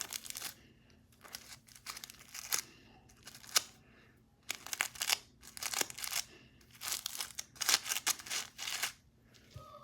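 Crinkling and rustling from things being handled, coming in irregular bursts a second or so long with short pauses between.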